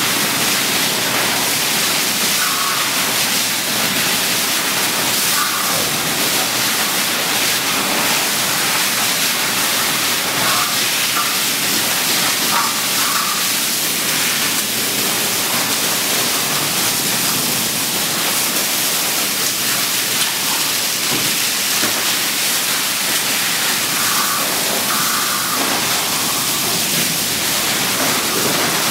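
Fire hose nozzle jetting water onto walls and burnt debris, a steady hiss and spatter of spray.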